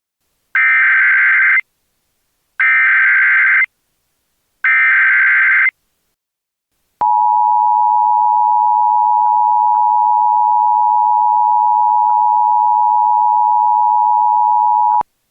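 Emergency Alert System tones. First come three identical bursts of SAME header data, about a second each and a second apart. After a short gap the two-tone attention signal (853 and 960 Hz together) sounds steadily for about eight seconds and cuts off sharply. Together they announce that an emergency alert message follows.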